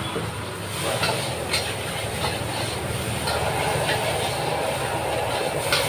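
Large gas wok burner burning with a steady low rumble under fried rice sizzling in the wok; a metal spatula scrapes and clanks against the wok several times, and the sizzle grows louder about a second in.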